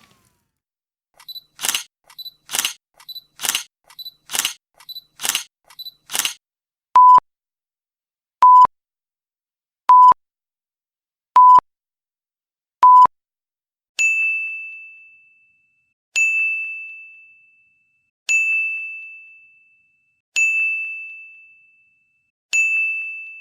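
Sound-effect sequence: about six camera shutter clicks, each a small click followed by a sharper snap; then five short censor beeps on one steady 1 kHz tone; then five bell dings, each struck once and ringing out before the next.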